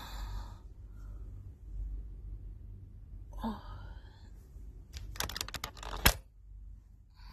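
A short murmur of a woman's voice at the start and again about three and a half seconds in. Then a quick run of clicks and rustles as the phone is handled and shifted against the bedding, ending in a sharp knock about six seconds in.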